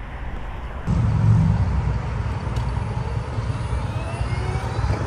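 Wind rushing on the microphone as a LiveWire One electric motorcycle pulls away, starting suddenly about a second in. The faint whine of its electric motor rises in pitch as the bike speeds up, from about four seconds in.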